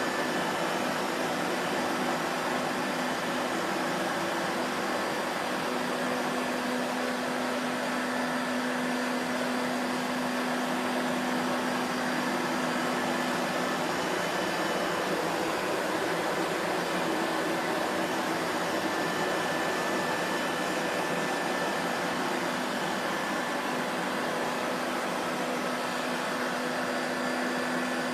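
Vacuum cleaner motor running steadily, a constant whooshing hum with a faint steady whine over it.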